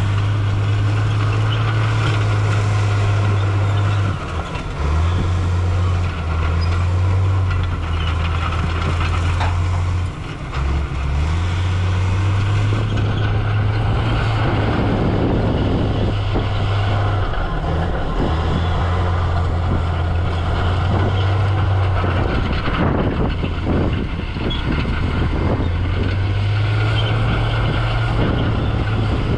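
Heavy diesel earthmoving machinery running under load, a deep steady engine drone that dips briefly now and then, with two stretches of rough clatter about halfway through and again later.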